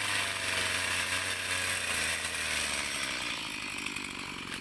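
Small two-stroke engine, most likely a chainsaw, running steadily under a dense hiss, its low drone fading out about three seconds in.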